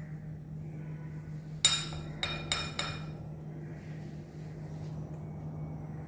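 Metal fork and spoon clinking against the rim of a glass mixing bowl, four ringing clinks within about a second and a half, the first the loudest, as a biscuit coated in melted chocolate is lifted out of the bowl.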